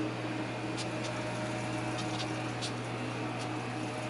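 Steady electrical hum with fan-like noise, with a few faint light ticks scattered through it.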